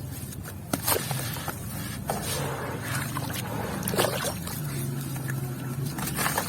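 Damp white cement chunks being crushed and crumbled: a continuous gritty crackle with several sharp, crunchy snaps, over a low steady hum.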